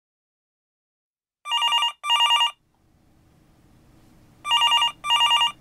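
Telephone ringing for an incoming call: two double rings, each a pair of short warbling rings, the second pair coming about three seconds after the first.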